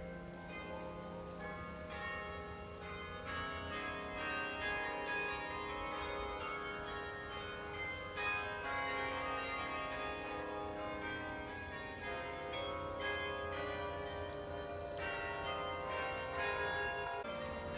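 Carillon music from the Bok Tower carillon: many tuned bells struck one after another in a melody, each note ringing on and overlapping the next.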